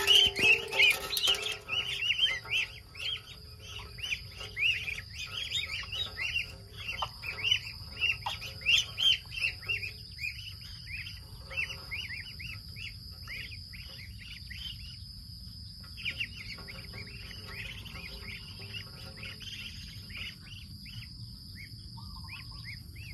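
A flock of ducklings peeping, many short high calls overlapping, busiest in the first couple of seconds and thinning out toward the end, with brief lulls about ten and nineteen seconds in. A steady high whine lies underneath.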